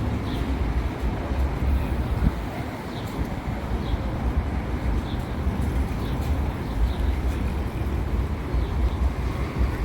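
Outdoor city ambience: a steady, uneven low rumble, with faint short high chirps now and then.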